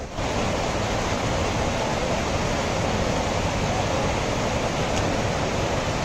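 Mountain stream rushing over boulders: a steady, loud wash of water.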